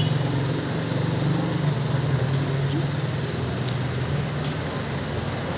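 Steady low engine hum of a motor vehicle running nearby over street noise, weakening after about four seconds.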